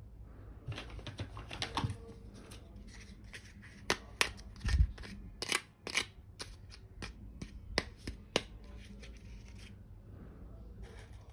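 Small plastic toy kitchen pieces and their packaging being handled: irregular sharp clicks and taps with some rustling, and a dull thud about five seconds in.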